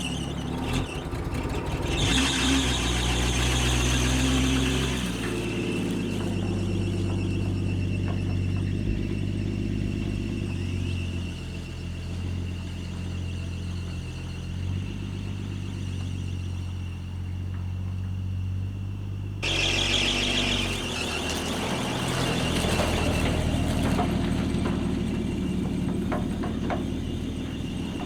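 Small-block Chevy V8 in a squarebody pickup running just after being revived from years of sitting, its speed and loudness shifting a few times. A steady high-pitched squeal carries over the engine throughout.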